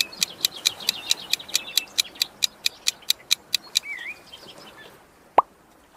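Rapid, even ticking, about five ticks a second, that stops after nearly four seconds, over chirping birds; a single short blip sounds near the end.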